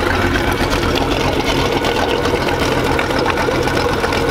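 Mercruiser engine and Alpha One outdrive running, heard close at the outdrive: a steady, rapid mechanical clatter over the engine hum. The owner takes it for worn U-joints.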